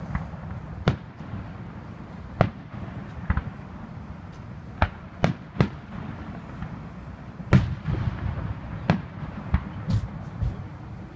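Aerial firework shells bursting, about a dozen sharp booms at irregular intervals, some in quick succession, over a steady low background rumble.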